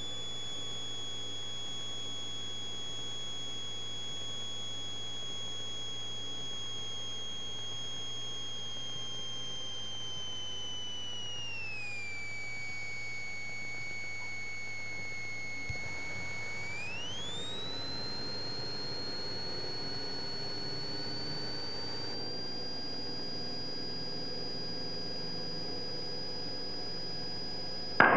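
High electrical whine in the Cessna 172's intercom audio, its pitch tracking engine speed. It slides down steadily about halfway through as power comes off for touchdown, then climbs back up as power goes on for the touch-and-go, over a faint low hum.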